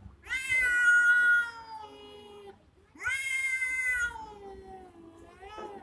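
Two cats yowling at each other in a territorial standoff: two long, drawn-out wails, the second starting about three seconds in and ending with a rising glide.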